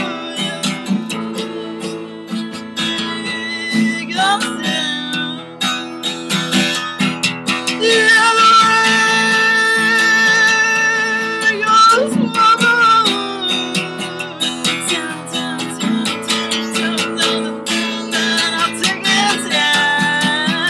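A woman singing while strumming an acoustic guitar. Around the middle she holds one long, loud, wavering note over the strumming.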